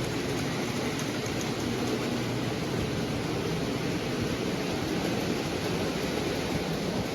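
Model train running on the layout's track, a steady rolling noise of its wheels on the rails and its electric motor.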